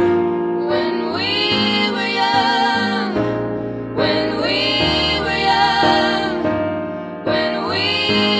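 Slow pop ballad: a woman's voice singing long, wavering held notes in several phrases over piano and band accompaniment.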